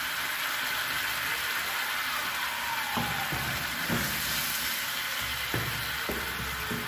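Chicken pieces sizzling in a simmering onion-tomato sauce in a frying pan, a steady hiss. From about three seconds in, a wooden spoon stirs them, with a few soft knocks against the pan.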